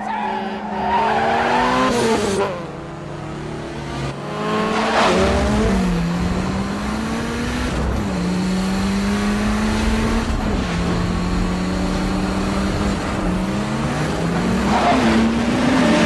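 Tuned Honda Civic engines revving hard at high speed. The pitch climbs and then drops back about four times as they shift up through the gears, with a few sharp swells as cars pass close.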